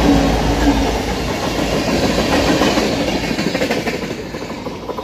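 Norfolk Southern diesel locomotives and cars passing close by, engines running and wheels rolling over the rails. The sound is loudest at first and falls away after about four seconds as the train moves off.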